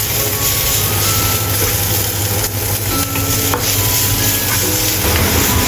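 Diced onion sizzling in hot oil in a nonstick pan while a wooden spatula stirs and scrapes it around, over a steady low hum.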